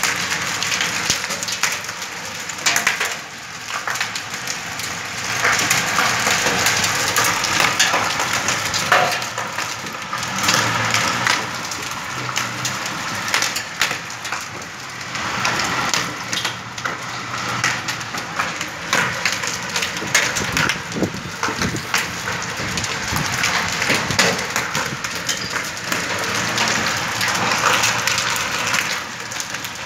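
Heavy rain pelting a paved courtyard: a dense, steady patter of many sharp hits.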